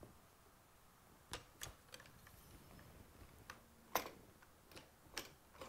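Faint, scattered clicks and taps of a rifle cleaning rod being worked through a bore guide as a wet patch is pushed down the barrel. The loudest click comes about four seconds in.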